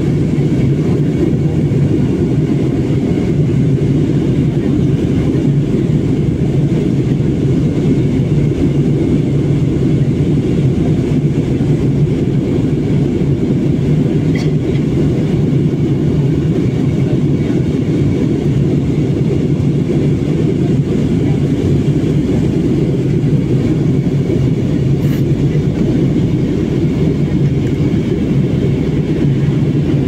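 Steady cabin noise of a jet airliner in flight: a dense, even low drone of engines and rushing air, heard from inside the cabin.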